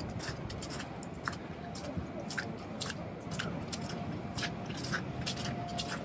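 Footsteps crunching in fresh snow, about two steps a second, over a steady low background rumble.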